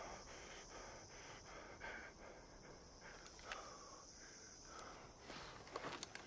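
A faint, steady high-pitched buzz with quiet breathing under it. Near the end, footsteps scuffle on rocky ground as a man starts to move off.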